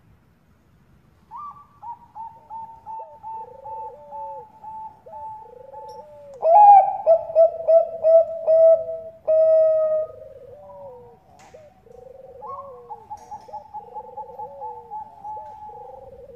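Bangkok perkutut (zebra doves) cooing in long runs of quick, short staccato notes. The song is loudest from about six to ten seconds in, then goes on fainter.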